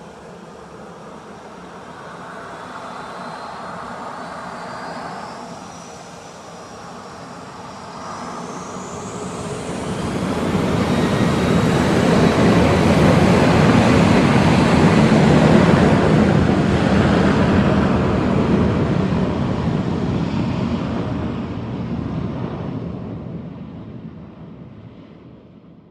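Large passenger airliner taking off, heard from outside. The jet engines' whine rises in pitch over the first several seconds. The engine noise then swells, is loudest about halfway through, and fades away toward the end as the plane passes and climbs off.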